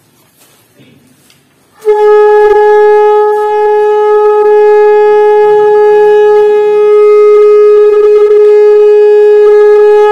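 Conch shell (shankha) blown in one long, steady, loud note, starting about two seconds in and held for about eight seconds.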